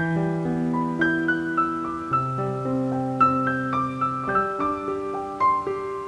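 Background piano music: a slow melody of single notes over held chords that change about every two seconds.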